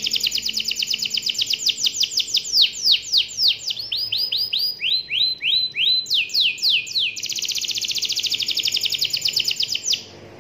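Domestic canary singing a long rolling song: very fast trills of rapidly repeated notes, slower downward-sweeping notes in the middle, then a fast trill again that stops near the end.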